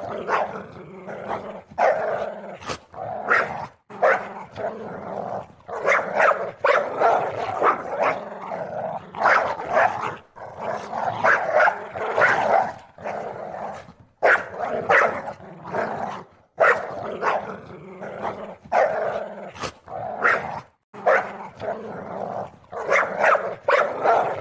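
Puppy growling with short barks and yips in quick, irregular bursts: play growling while it tugs and chews on a leash.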